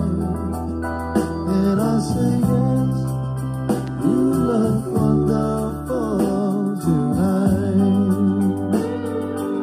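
Music laid over the footage: a sung melody over sustained bass notes and keyboard chords.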